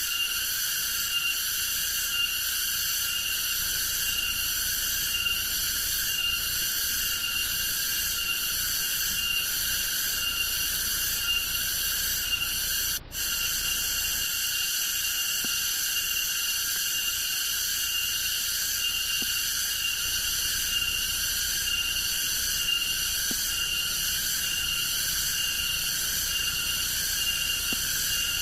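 Loud, steady insect chorus in tropical forest: a shrill, high buzzing with a regular pulse. It cuts out for an instant about halfway through.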